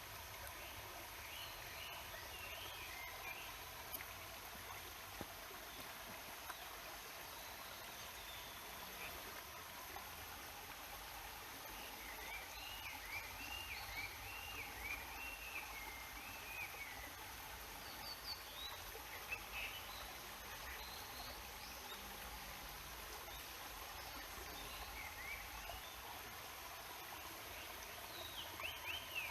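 Rushing water of a waterfall and stream, a steady even rush. Over it a songbird sings short warbling phrases at intervals, with a longer run of notes around the middle.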